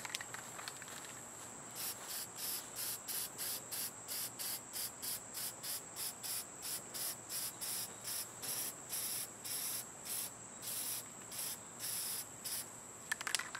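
Insects calling in a steady rhythm, about three pulses a second, beginning around two seconds in, over a constant high-pitched whine.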